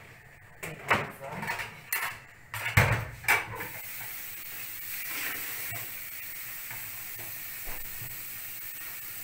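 A spoon knocks against a cooking pot several times while the almond-flour and psyllium thickener is added to the harira soup. From about three and a half seconds in, a steady hissing sizzle comes from the pot on the stove.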